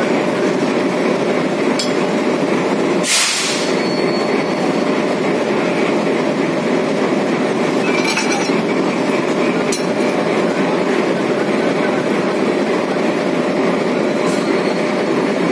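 Diesel locomotive engine running steadily close by, with a few sharp metal clinks as the coupling gear and brake-hose fittings are handled. A short louder burst of noise comes about three seconds in.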